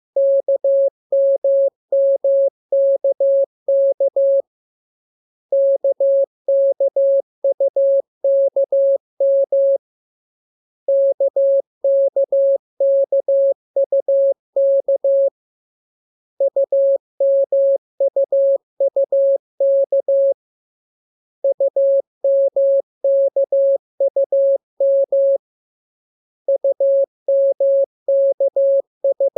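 Morse code practice sent as a single-pitched beep keyed into dots and dashes, in groups of about four seconds with pauses of about a second between them. These are drills of the lesson's letters K, M and U.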